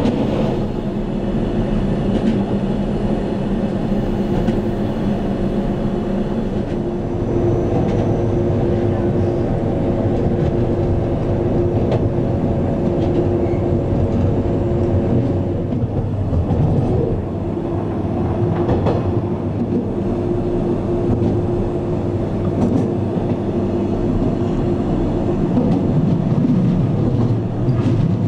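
Glacier Express electric metre-gauge train running along the track, heard on board: a steady rumble with a constant hum and a few faint clicks from the rails.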